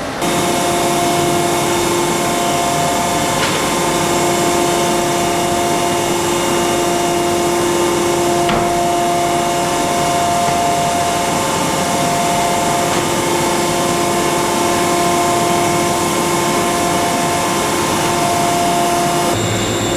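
Mollart four-spindle gundrilling machine drilling a pellet die: a steady whine of several held tones over a constant hiss, with a couple of faint clicks.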